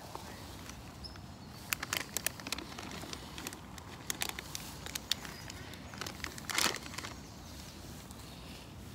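Close rustling with clusters of sharp crackles, a few at a time in three bursts, the loudest a brief longer rustle about two thirds of the way in.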